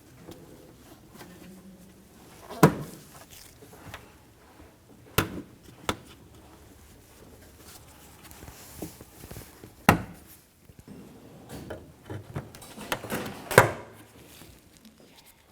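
Plastic push pins being pressed into the hood latch cover on the radiator support, each one snapping home with a sharp click, about five loud clicks a few seconds apart with smaller taps between them.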